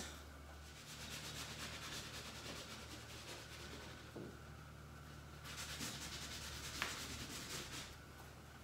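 Paint being rubbed and scrubbed onto a stretched canvas: a faint scratchy rubbing that grows louder a little past halfway, with one sharp tick near the end.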